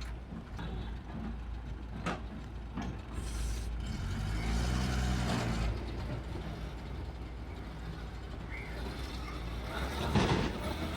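Heavy diesel construction machinery running, with its engine note rising and falling about halfway through as it works under load. A few sharp knocks, then a short loud hiss near the end.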